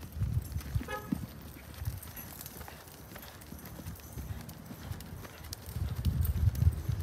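A ridden buckskin Quarter Horse's hooves thudding rhythmically in soft arena sand, heaviest near the end.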